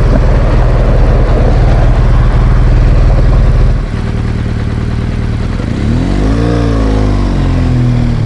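BMW R1200GS Adventure's boxer-twin engine running under way: steady and loud, then easing off about four seconds in as the throttle closes. Near the end a pitch rises and falls.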